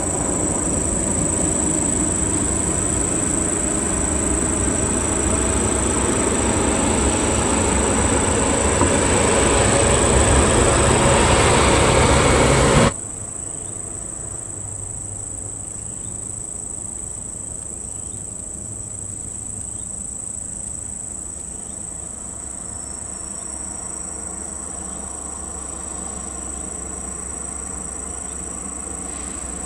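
Heavy lowboy truck driving past close on a dirt haul road, its engine and tyre noise growing louder, then cutting off suddenly about 13 seconds in. After that, quieter heavy truck engines run steadily under a high, steady insect drone heard throughout.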